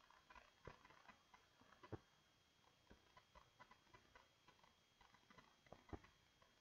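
Faint, irregular clicks of a computer mouse, with two louder clicks about two seconds in and near the end.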